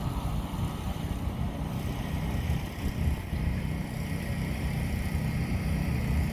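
Tractor engines idling together, a steady low rumble.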